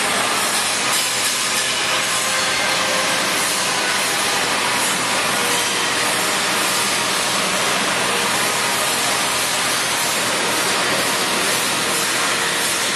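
Vegetable cutting machine running steadily: a constant mechanical hiss with a faint hum under it, unchanging throughout.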